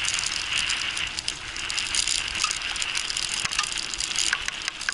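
Mountain bike rolling fast over a rough dirt trail: steady tyre noise with the bike's chain and parts rattling in many quick clicks over the bumps.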